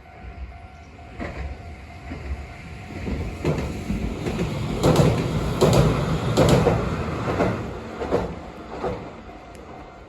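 A train passing, its wheels clacking over rail joints about once a second under a steady rumble, growing louder to a peak about five to seven seconds in, then fading.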